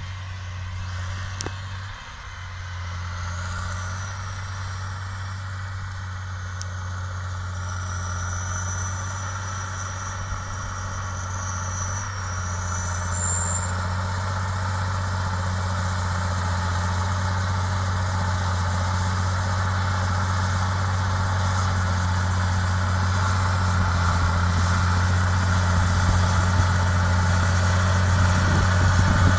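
Challenger MT865C tracked tractor's Caterpillar C18 six-cylinder diesel running steadily under load while pulling a land leveller, a steady low engine note that grows louder as the tractor comes closer.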